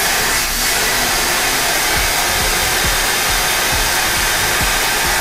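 Loud steady hiss of compressed air while a quad-bike tyre is inflated and its bead seated on a tyre-changing machine, with a bead-seating blaster tank held at the rim.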